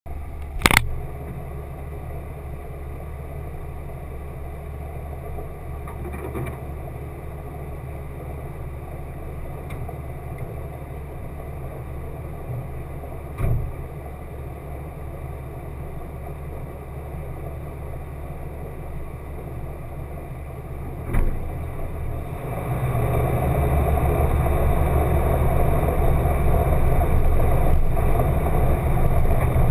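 A 1995 Jeep Wrangler YJ's engine idling, heard muffled through a GoPro waterproof housing, with a sharp knock near the start and a couple of lighter knocks later. About three quarters of the way through it gets louder as the Jeep pulls away and drives along the dirt trail.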